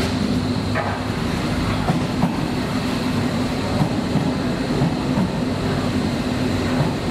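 Berlin S-Bahn electric multiple unit running into the platform: a steady rumble of wheels and a low motor hum, with a few faint clicks of wheels over the rail joints.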